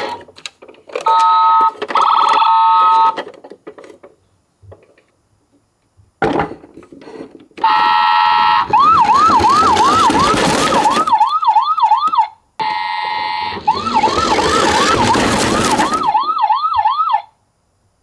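Toy ambulance's electronic siren sound effect: short steady multi-tone horn blasts, then a fast yelping siren sweeping up and down about three or four times a second, played twice over a rushing noise, and cutting off suddenly near the end.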